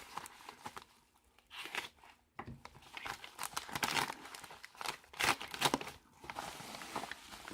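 Packaging being torn open and crinkled by hand: irregular rustling and crackling in uneven bursts, with brief pauses.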